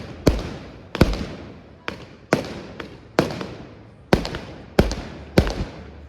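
Fireworks display: aerial shells bursting in quick succession, about two sharp bangs a second, each trailing off in an echoing rumble.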